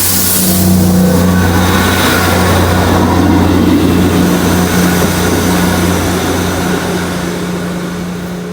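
Train engine running with a steady low hum, fading away near the end.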